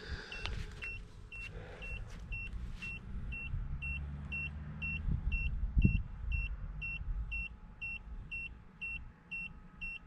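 The solar tracker's controller buzzer beeps steadily, about three short high beeps a second. Under it runs the low hum of the tracker's actuator motor tilting the panels, heaviest midway through, with a single knock about six seconds in.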